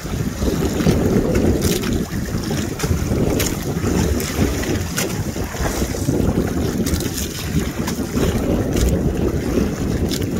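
Wind rumbling on the microphone over water sloshing around a small boat, with scattered sharp ticks and splashes.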